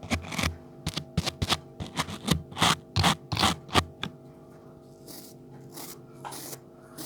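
Quick scratching and scraping strokes on an object, about a dozen in the first four seconds, then a few softer brushing sounds, over a faint steady hum.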